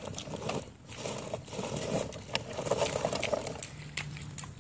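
Radio-controlled rock crawler's electric motor and gears whirring as it tows a ride-on trailer, its knobby tires and the trailer's wheels scraping and crackling over concrete and grit.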